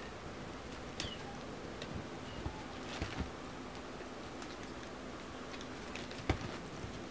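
Bengal kittens scrabbling and pawing at a carpeted cat post and dangling toys: scattered light taps and scratches over a steady hiss, the sharpest tap about six seconds in.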